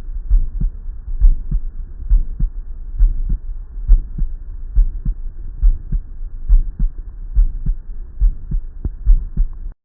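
Heartbeat, steady at about seventy beats a minute, with an ejection systolic murmur heard in systole between the first and second heart sounds.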